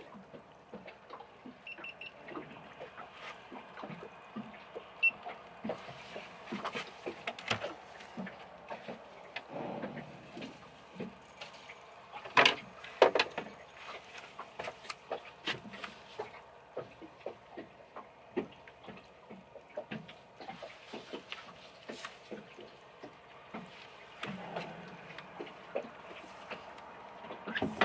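Scattered clicks and knocks of someone moving about a small fishing boat and handling rods and a landing net, over a faint wash of water against the hull. Two louder knocks come close together about halfway through.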